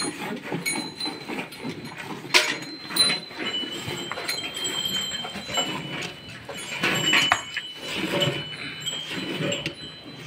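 Hand milking of a cow: jets of milk squirting one after another into a steel bucket that already holds frothy milk, with faint steady high tones like the metal pail ringing.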